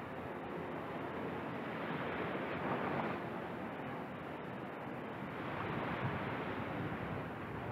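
Small waves washing onto the beach in a steady surf hiss, swelling about three seconds in and again about six seconds in.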